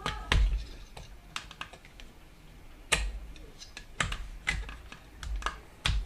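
Irregular sharp plastic clicks and knocks from handling the parts of a Jebao aquarium sump pump while its rubber seal gasket is swapped onto a spare pump, some with a dull low thump.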